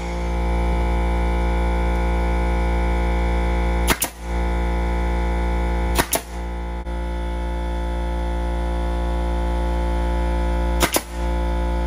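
Pneumatic nail gun firing into wood three times, about four, six and eleven seconds in, each shot a sharp double crack. Behind the shots runs a loud, steady drone of background music.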